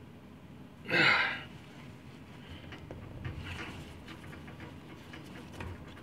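A short, sharp breath about a second in. After it come faint scrapes and clicks from a tool working at the rust-seized blades of an old pocket knife, which stay stuck.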